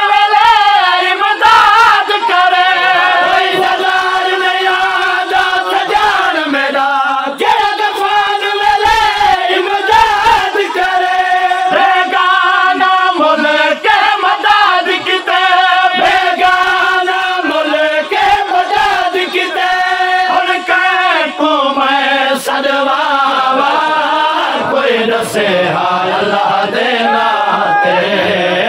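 Male noha reciters singing a noha, a Shia mourning lament, in chanted phrases with long wavering held notes.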